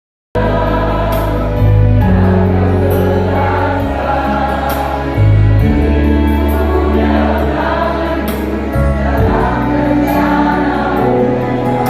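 A choir of family members singing together, starting a moment in.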